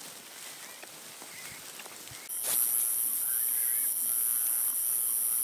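Footsteps and rustling through grass as a hog carcass is dragged. About two seconds in this gives way to a loud, steady, high-pitched chorus of night insects, with a few faint wavering calls beneath it.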